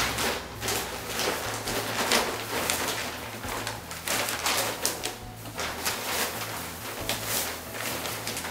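Paper and plastic sheeting crinkling and rustling as it is rolled and pushed into a bundle by hand, in irregular bursts of crackle.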